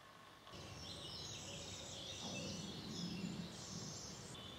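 Birds chirping, faint, starting about half a second in.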